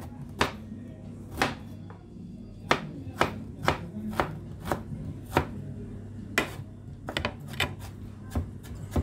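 Chef's knife slicing fresh ginger on a plastic cutting board: a knock each time the blade meets the board, about fifteen cuts at an uneven, unhurried pace, with a quicker run of cuts late on. A steady low hum lies underneath.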